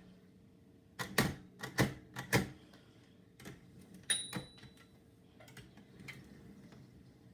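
AMC typewriter keys striking in a slow, uneven run of sharp clacks, with a short bell ding about four seconds in, then a few lighter clicks.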